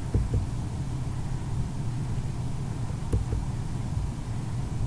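A steady low hum in the recording's background, with a few faint soft bumps near the start and about three seconds in.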